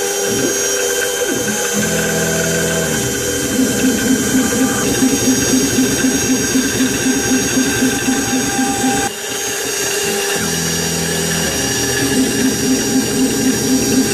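CNC router spindle running with its end mill wet-milling a carbon fiber plate under a water coolant spray: a steady high whine over a rapid, regular pulsing cutting sound. A lower, deeper machine tone joins briefly twice, about two seconds in and again about ten seconds in.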